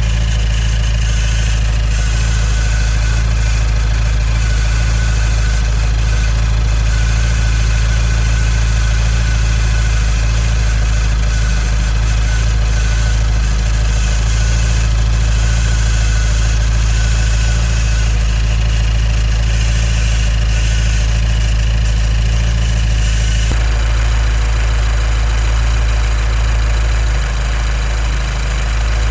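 2015 Nissan Juke Nismo RS's turbocharged 1.6-litre four-cylinder engine idling steadily, with an unusual static-like noise that the owner takes for the known timing chain problem rather than a vacuum leak. The engine tone shifts a little over twenty seconds in.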